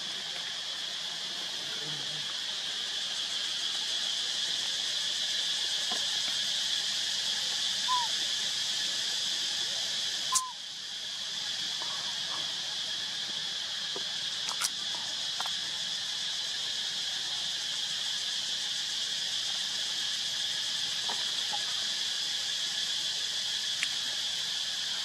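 Steady chorus of insects, a high, even drone, with a single sharp click about ten seconds in.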